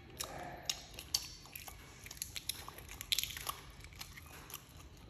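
A person biting and chewing food close to the microphone: many irregular, sharp, crunchy clicks, a few louder ones standing out.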